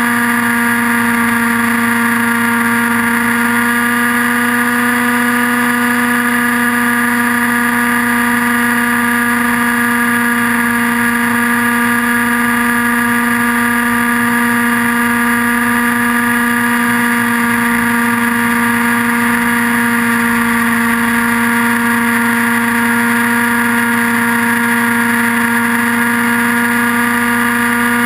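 Align T-Rex 700N RC helicopter's nitro glow engine and rotor running in flight, heard on board, at one steady unchanging pitch.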